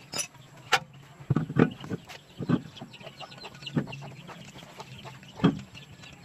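Chickens clucking: short separate calls about every second, over a faint low steady hum.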